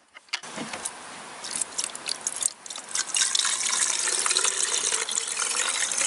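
Petrol and two-stroke oil mix pouring from a plastic canister into a Stihl MS 180 chainsaw's fuel tank, a steady flow of liquid that grows louder about three seconds in. A few clicks come near the start as the filler is handled.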